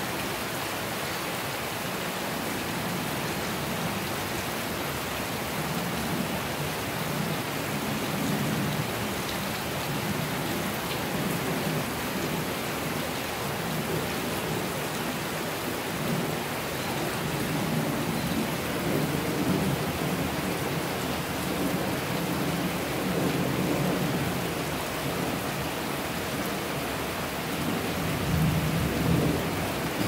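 Steady rain hissing on a concrete rooftop, with low rumbles of thunder swelling and fading again and again, the loudest near the end.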